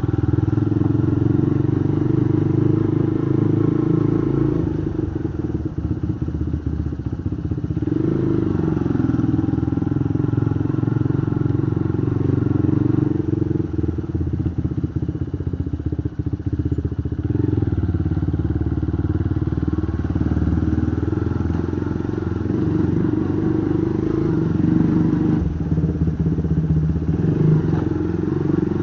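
Motorcycle engine running while the bike rides along, heard close up from a mount on the bike. Its note dips and picks up again a few times as the throttle is eased and opened.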